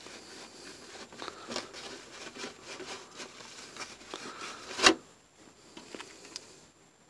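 Wet paper towel rubbing over a thin clear Lexan RC car body, stripping off its old paint: soft rustling and crinkling of the towel and flexing plastic shell. A sharp tap of the shell about two-thirds of the way through is the loudest sound.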